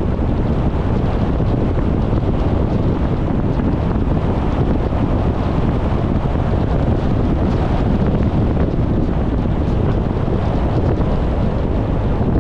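Steady road and wind noise from a moving car, a constant rumble without pitch changes or distinct events.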